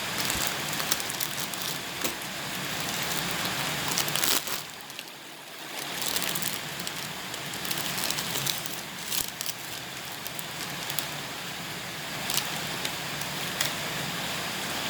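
Electric meat grinder running, crunching dry instant noodles, with dense crackling and sharp cracks over a low motor hum; the crunching briefly eases about five seconds in.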